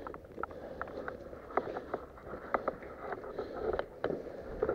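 Airsoft game sounds: scattered sharp clicks and pops at irregular intervals, the shots of airsoft guns mixed with gear knocks, over a low rumble.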